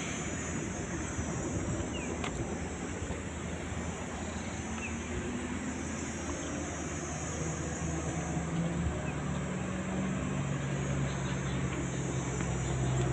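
Steady rushing wind and water noise of a motorboat ride, with the boat's engine running underneath. A low steady hum comes in about two-thirds of the way through.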